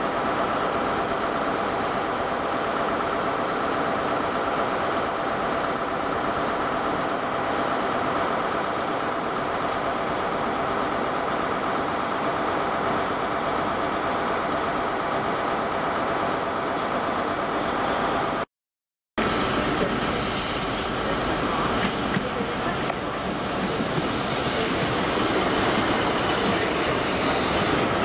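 Diesel multiple unit trains at a station platform: steady engine and rail noise as a unit approaches, then after an abrupt cut about two-thirds through, a unit running past close by, getting louder near the end.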